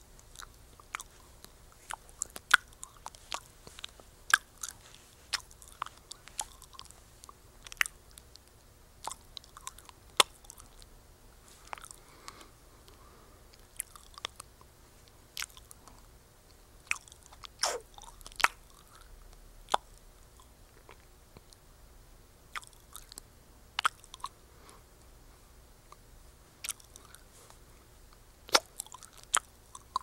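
Chewing gum being chewed close up: irregular wet smacks and sharp clicks, a few each second, some much louder than others.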